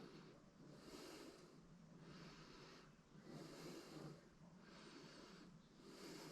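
Faint, regular breathing close to the microphone, about five soft breaths.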